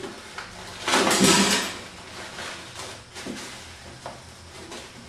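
Cardboard shipping box scraping and rustling as the heavy electric motor packed tightly inside it is tugged at. There is a louder scrape about a second in, then a few light knocks.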